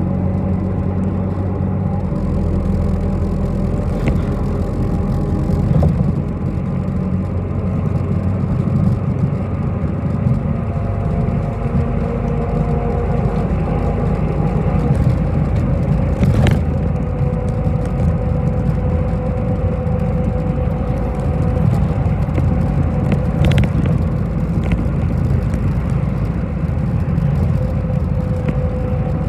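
City bus in motion heard from inside the cabin: a steady low engine and road rumble, with a drivetrain whine that slowly shifts in pitch and a few sharp rattles or knocks.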